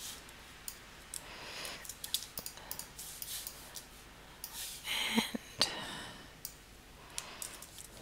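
Scattered clicks of a computer mouse and keyboard as shapes are selected, resized and copied in a drawing program, with a short rustling noise about five seconds in.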